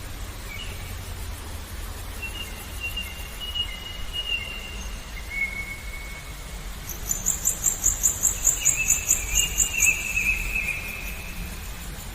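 Small birds singing long drawn whistles, with a loud, rapid, high-pitched chirping trill of about five pulses a second from about seven to ten seconds in, over a steady low rush of murmuring water.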